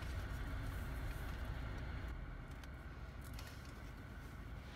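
Low, steady rumble of a car heard from inside the cabin, easing a little toward the end.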